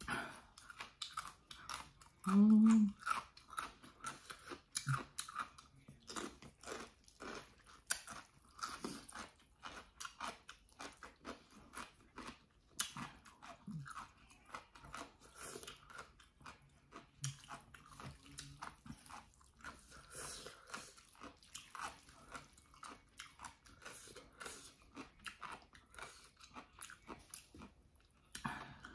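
Close-miked eating of bibim jjolmyeon (chewy cold noodles) with leafy greens: steady, irregular chewing, lip smacks and crunching. A brief hummed vocal sound about two seconds in is the loudest moment.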